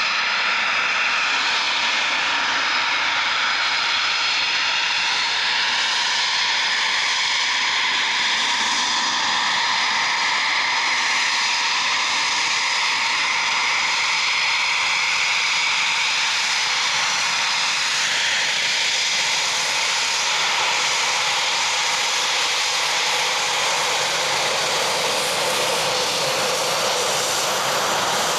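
Eurofighter Typhoon's twin Eurojet EJ200 turbofans running at taxi power as the jet taxis close past. A loud, steady jet whine with high whistling tones, one of which slowly rises in pitch over the first half.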